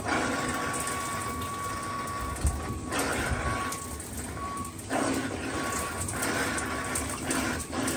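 Shower head spraying water into a fibreglass tub as air is purged from freshly refilled water lines. The flow is weak and uneven, dipping briefly about three and five seconds in, with a faint thin whistle that comes and goes.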